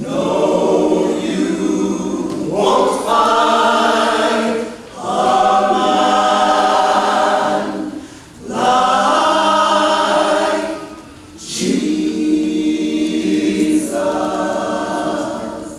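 Gospel choir singing in long, sustained phrases, with short pauses between them.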